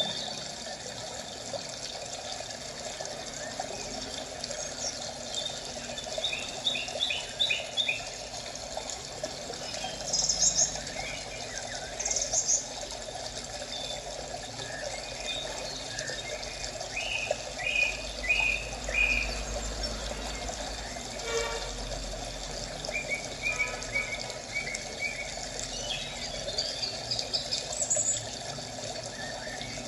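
Birds chirping in short, quick runs of high notes several times over a steady hiss of running water.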